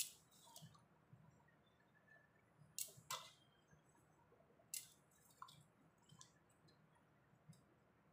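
Near silence broken by a handful of faint clicks and light rustles as small offerings are set down by hand, the clearest near the start and at about three and five seconds in.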